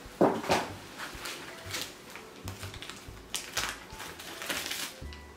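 Plastic packaging rustling and crinkling in irregular bouts as small parcels are handled and opened, the loudest a sharp rustle just after the start.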